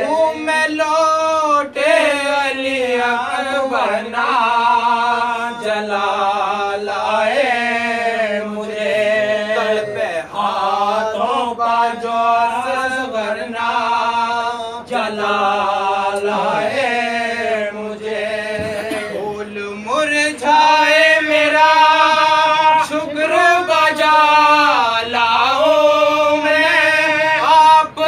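A young man's voice chanting an Urdu marsiya, a Muharram lament for Karbala, with no instruments, in long held and ornamented melodic lines. About twenty seconds in, the voice rises in pitch and grows louder.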